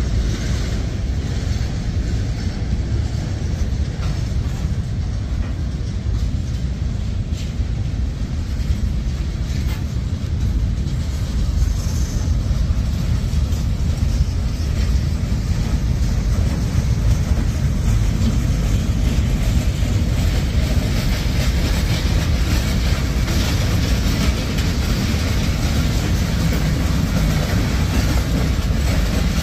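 Freight cars of a mixed freight train rolling past, a steady low rumble of steel wheels on rail. A higher hiss grows louder partway through.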